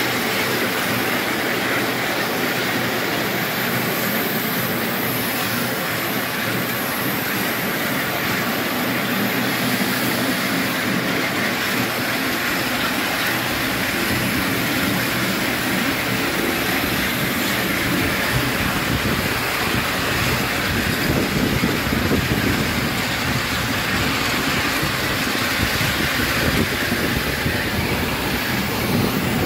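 A 5-inch gauge live-steam model of a BR Britannia-class Pacific locomotive running along the track, heard close up from behind its tender: a steady, fast run of exhaust beats and wheel-on-rail noise.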